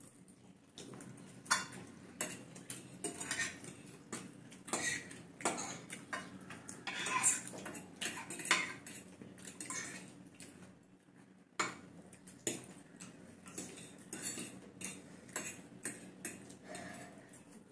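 Metal forks clinking and scraping against plates as several people eat noodles, in irregular clicks of varying loudness.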